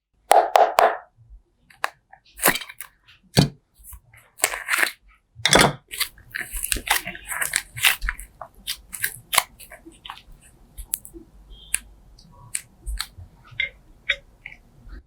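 Slime being squeezed and poked by hand: irregular wet squelches and sharp crackling pops, with a dense run of small crackles from about six seconds in.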